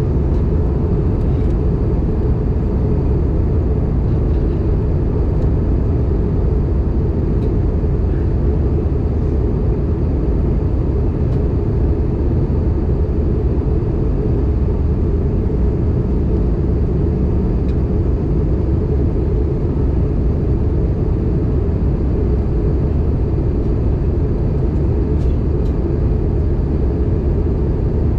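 Airbus A320 cabin noise in flight during descent: a steady low rumble of engines and airflow heard from inside the passenger cabin, unchanging throughout.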